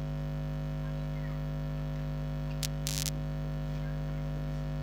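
Steady electrical mains hum, with a click and a short scrape of pliers on wire between two and a half and three seconds in.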